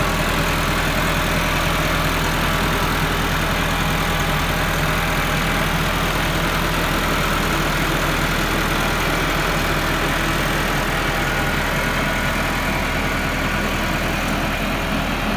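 Massey Ferguson 385 tractor's four-cylinder diesel engine running steadily under load, pulling a potato digger that is lifting potatoes from the soil.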